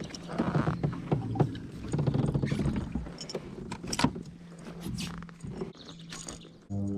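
Handling noise from a landing net and a freshly caught bass in a kayak: irregular knocks, clicks and rustling as the fish is unhooked with pliers. Background music comes in suddenly near the end.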